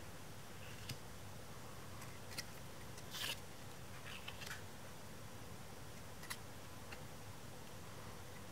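Pokémon trading cards being handled and flipped one after another: short crisp card snaps and swishes, a second or so apart, over a faint steady hiss.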